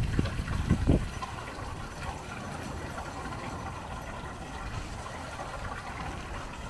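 Wind buffeting the microphone in a few low rumbling gusts within the first second, then a steady, even rushing background noise outdoors.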